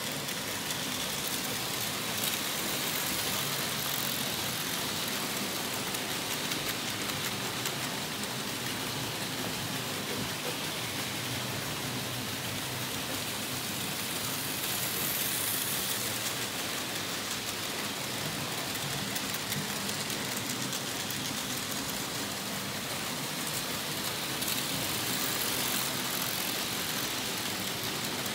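Märklin H0 model trains running on hollow stamped-steel M track: a steady metallic rattle of wheels over the rails, with the whir of the locomotive motors. It swells now and then as a train passes close.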